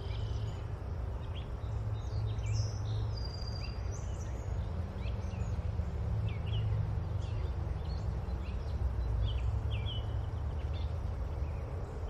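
Nature ambience: small birds chirping in short, scattered calls over a steady low rumble.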